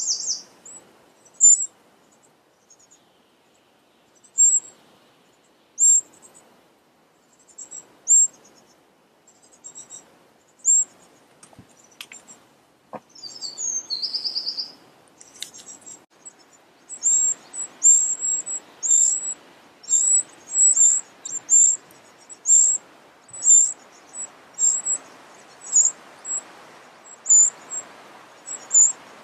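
Eurasian wren nestlings begging with thin, very high cheeps. These come scattered at first, then in a rapid, near-continuous run through the second half, when an adult wren is at the nest. A short buzzy call sounds around the middle.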